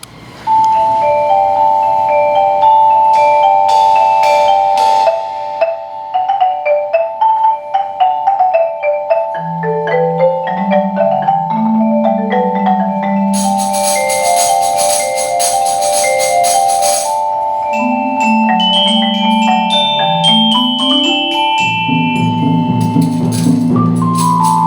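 Percussion ensemble playing on mallet instruments: struck, ringing pitched notes in quick melodic lines, with a lower line coming in about ten seconds in. A bright metallic shimmer sounds for a few seconds in the middle, and the texture thickens near the end.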